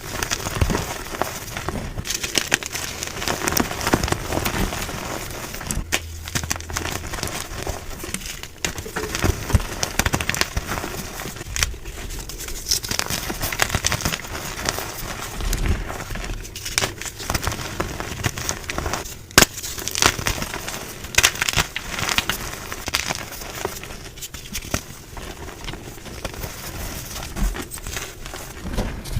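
Blocks of gym chalk being crushed and crumbled close to the microphone: a dense run of crunchy crackles and sharp snaps, with a few brief lulls between squeezes.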